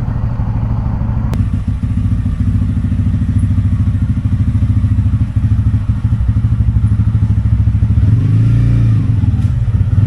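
TVS Ronin 225's single-cylinder engine idling with a steady, fast pulse. The revs rise briefly and fall back about eight seconds in.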